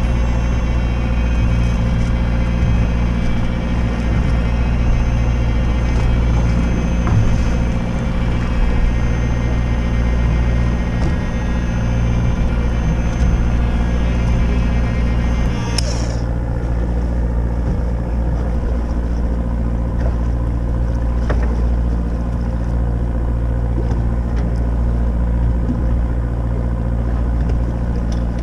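A fishing boat's engine running steadily with a deep, even hum. About halfway through, the higher hiss above it drops away while the hum carries on.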